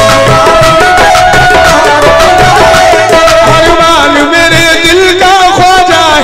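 Live qawwali: a lead voice sings long, ornamented, wavering phrases over held harmonium notes and a steady hand-drum beat.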